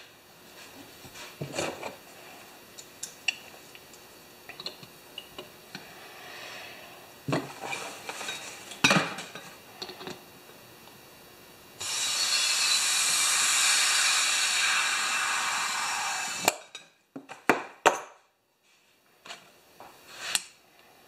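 Small knocks and clicks of hands and an air chuck on a small tractor wheel's valve stem, then about 12 s in a steady hiss of compressed air for four to five seconds as the tire's inner tube is inflated toward about 10 psi, followed by a few sharp clicks as the chuck comes off.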